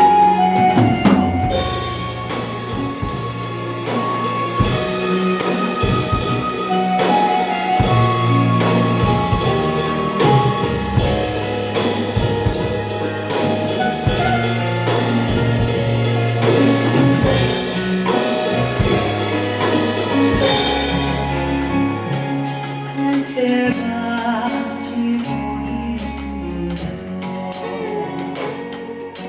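Acoustic drum kit played along to a recorded song, keeping a steady beat with regular cymbal strikes over the track's bass and melody.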